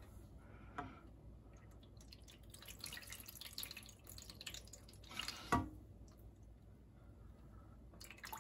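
Water dripping and lapping in a shallow metal oven tray used as a water bath for a cheesecake, with a scatter of small ticks and one sharp knock a little past halfway.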